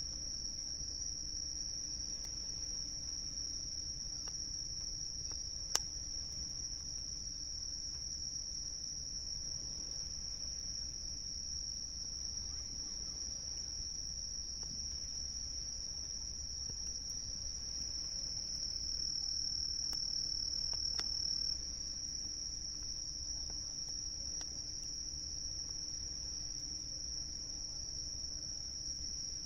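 Chorus of night insects singing in one steady, continuous high-pitched trill, with a single sharp crackle from the campfire about six seconds in.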